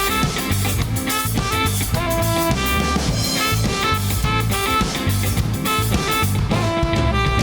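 Funk band playing: a drum kit keeps a steady beat under a strong bass line and short, repeated melodic notes.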